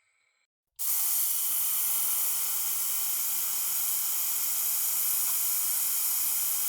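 A steady, high hiss, like pressurised air or gas escaping, comes in suddenly about a second in and holds without change.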